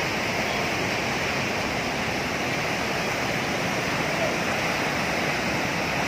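Steady, unbroken rush of the Narmada river in high, muddy flow, churning through the rapids at Dhuandhar falls.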